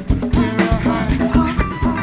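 Live band playing a song, with a drum kit keeping a steady beat under held instrument notes.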